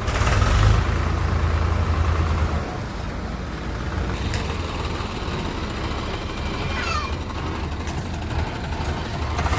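Heavy diesel machine engine running, louder for the first few seconds and then dropping to a lower, steady rumble. A brief hiss comes right at the start.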